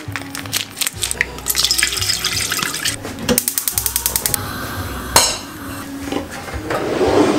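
Kitchen handling sounds: a stainless steel pot knocked and wiped with a cloth. Midway comes about a second of rapid, even clicking, a gas hob's spark igniter firing as a burner knob is turned.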